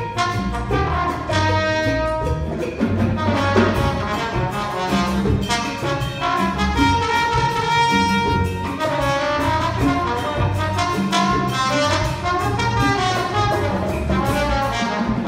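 High school jazz band playing, saxophones and brass together in full ensemble, with long held notes.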